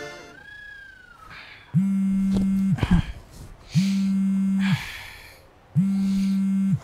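Smartphone vibrating with an incoming call: a low steady buzz, about a second on and a second off, three times.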